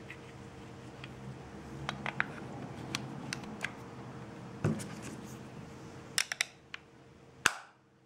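Small clicks and taps of batteries and casing being handled in a SMOK G-Priv box mod's battery bay, with a duller knock about halfway. A quick run of clicks ends in one sharp snap near the end as the battery cover is pressed into place.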